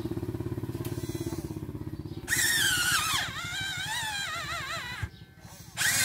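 Electric motors and gearing of a radio-controlled Volvo toy excavator working its boom, arm and bucket while digging into soil. A fast low grinding buzz gives way about two seconds in to a louder high whine that wavers in pitch, drops out briefly near the end and starts again.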